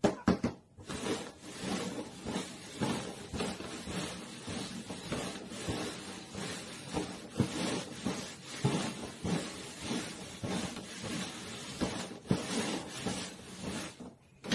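Paper cups being slid and shuffled quickly across a cardboard box top: a steady rapid scraping and rustling full of small taps, which stops near the end.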